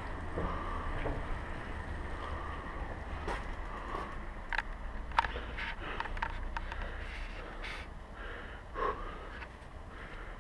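Bicycle rolling over cobblestone paving: a low wind rumble on the microphone, with a run of sharp rattles and clicks in the middle as the bike jolts over the stones.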